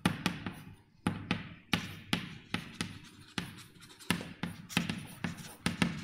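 Chalk writing on a blackboard: a string of irregular sharp taps and short scrapes as an equation is written.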